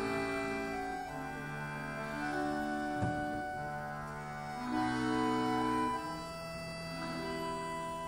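Two chromatic button accordions playing a duet in sustained chords, the held notes changing every second or so, with a short knock about three seconds in.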